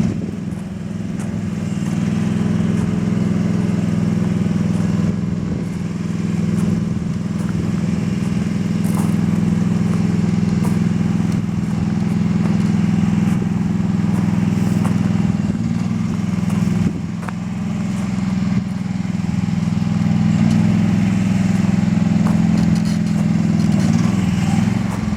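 Mini excavator engine running steadily.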